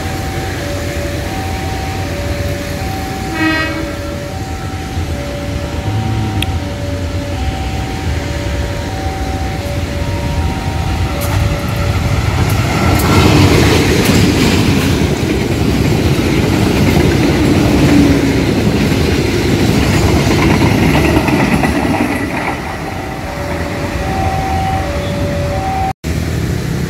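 Railway level-crossing alarm sounding a steady alternating two-tone chime, with a short train horn blast about three seconds in. From about twelve seconds a passenger train hauled by a CC 201 diesel-electric locomotive passes close by for about ten seconds, loud enough to drown the alarm. The alarm is heard again near the end.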